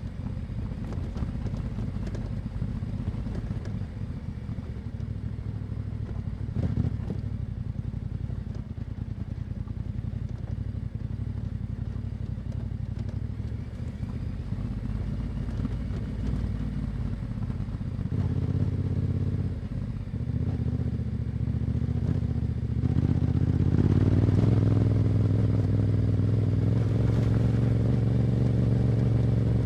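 Yamaha Ténéré 700's parallel-twin engine running through an Akrapovic exhaust while riding, with a few short knocks. It gets louder about two thirds of the way in and louder again shortly after, as the throttle opens.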